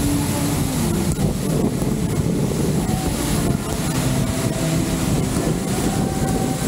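Road traffic heard from a moving bicycle: a steady rumble of motor vehicle engines, with the tones of nearby engines sliding down in pitch and holding for a second or so, and wind buffeting the action camera's microphone.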